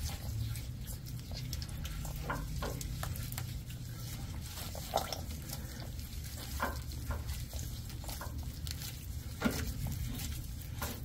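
An oil-soaked spin-on oil filter being turned off its long threaded mount on a Cat C12 diesel by hand, with wet handling, dripping oil and a few short scrapes and knocks, over a low steady hum.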